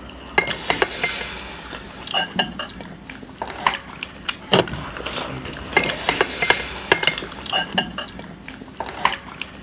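Cutlery clinking and scraping against dishes during a meal, with many short, irregular clinks.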